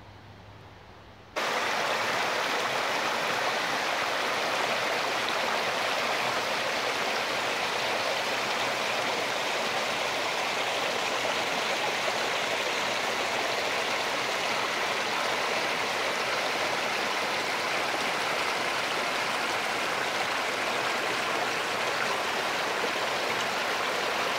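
Small stream of water cascading over rocks: a steady rush and splash that cuts in suddenly about a second in, after a faint low hum.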